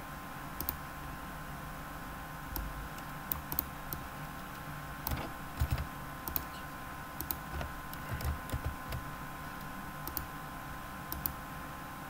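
Irregular computer keyboard keystrokes and clicks while a YAML file is edited, a few at a time with short pauses between them, over a faint steady hum.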